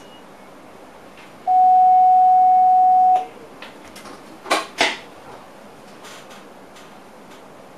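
A steady electronic beep in a train driver's cab, one even tone held for about a second and a half. It is followed about a second later by two sharp clicks in quick succession.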